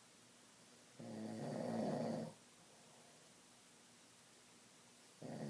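Snoring: two long snores about four seconds apart, the first about a second in and the second starting near the end, each growing louder before it stops.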